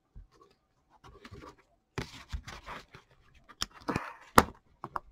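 Trading-card pack wrappers being torn open and crinkled, with two sharp snaps near the end.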